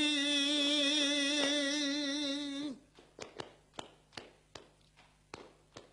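A man's flamenco cante sung unaccompanied: a long, wavering held 'ay' of the opening lament ends about two and a half seconds in. Then sharp hand claps (palmas), about two to three a second in an uneven flamenco rhythm, keep the compás of soleá por bulería.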